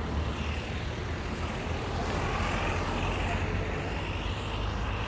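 Street traffic noise with a steady low rumble, swelling as a vehicle passes about two to four seconds in.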